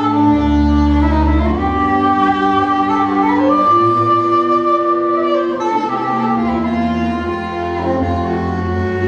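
Hungarian folk dance music: a slow melody of long held notes over a sustained bass.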